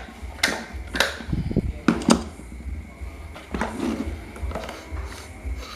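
Standing-fan motor housing being handled and fitted together, its hard plastic and metal parts knocking against each other. About five sharp clacks in the first three and a half seconds, then quieter handling.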